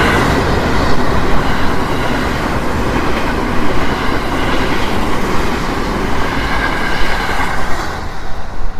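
Seibu Ikebukuro Line commuter train passing over a level crossing: loud rolling noise with irregular wheel clatter over the rail joints, dying away near the end as the last car clears.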